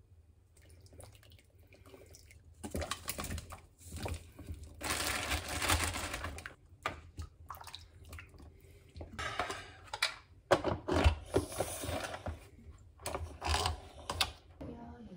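Liquid and chunks of vegetable splashing into a pot of stew, with a wooden spoon stirring and scraping in the Instant Pot's steel inner pot. Later come sharp knocks and clicks of the pot and its lid being handled and put back on.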